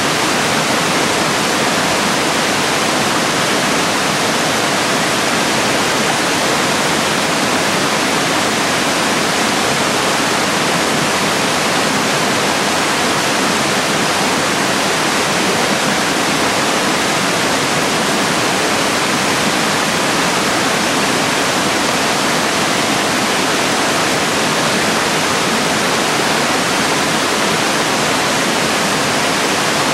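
Small cascades of a gorge stream pouring over rock ledges into a pool: a loud, steady rush of falling water, even throughout.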